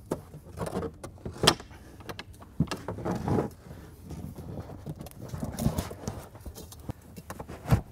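Bow floorboard of an inflatable boat being pried and pushed down onto its jointer. Irregular knocks of the hard board, the loudest about a second and a half in, with rubbing and scraping of the board against the hull between them.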